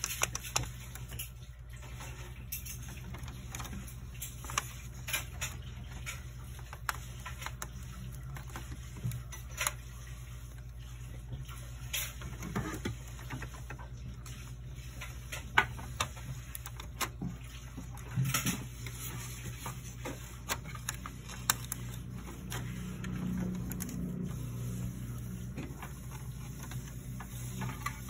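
Scattered light clicks and taps of hands working on a printer-scanner over a steady low hum, with a low rumbling stretch a little over three quarters of the way through.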